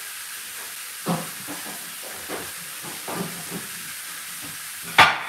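Meat browning in a hot frying pan, a steady sizzling hiss. A few soft knocks fall over it, and there is one sharp clatter near the end.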